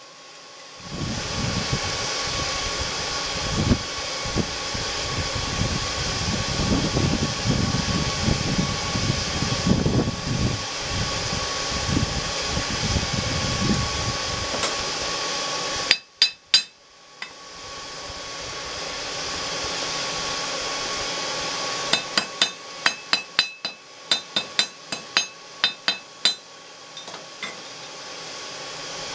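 Hand hammer striking hot steel on an anvil while drawing the tines of an iron cooking fork to a point: three sharp, ringing blows about halfway through, then a quick run of a dozen or more blows over about five seconds near the end. A steady rushing noise lies underneath.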